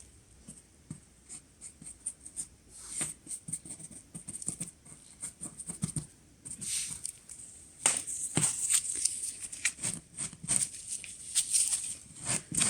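Irregular light taps, scratches and rustles of hand work: a brush and a napkin working patina into the recesses of a decorative fireplace element and wiping it off. They come in uneven clusters, busiest in the second half.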